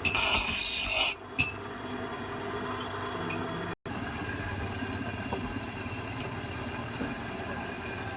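A harsh rasping stroke of a hand tool working the axe, lasting about a second, right at the start. It is followed by only a low steady background.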